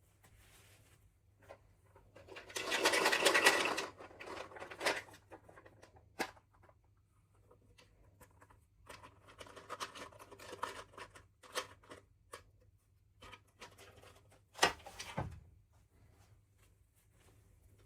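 Small plastic toy packaging being handled and opened: crinkling and rattling in irregular bursts, with scattered clicks and one sharp knock near the end.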